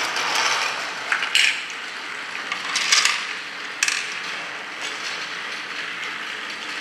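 Battery-powered toy train motor and plastic gears whirring steadily. A few sharp plastic clicks come through, from the small plastic coal pieces and scooper being handled.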